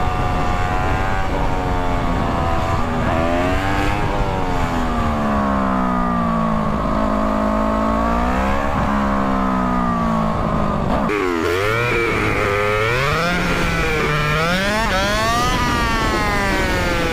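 Motorcycle engine revving up and down through the gears over wind and road noise, heard from the rider's seat. The stretch is fast-forwarded, so the engine's pitch swings quickly, with a sudden jump about eleven seconds in followed by rapid rises and falls.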